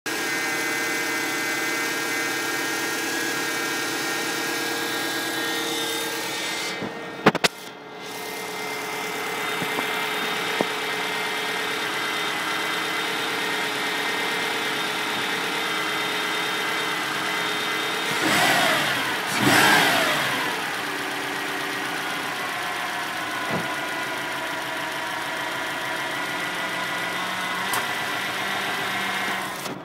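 2006 Subaru STI's turbocharged flat-four running just after a cold start, with a loud steady whine over the engine note. About two-thirds through, the whine sweeps up in pitch and back down. The owner finds the whine louder with revs and with the steering wheel turned, on a totally stock car.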